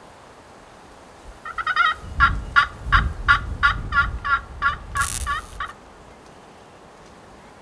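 Wild turkey calling: a long, even run of about twenty quick notes starting about a second and a half in and lasting about four seconds. A low rumble runs beneath the calls.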